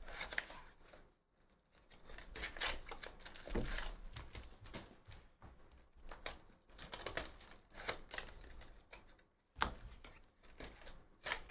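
Cardboard trading-card hobby box being torn open and its packs pulled out of their plastic wrapping: irregular tearing, rustling and crinkling, with short pauses between handfuls.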